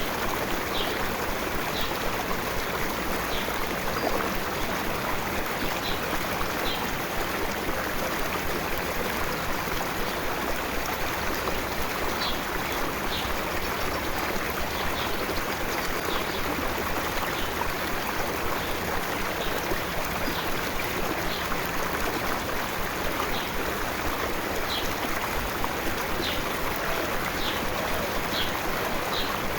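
Small stream running steadily, an even rush of flowing water. Brief high chirps come and go irregularly above it.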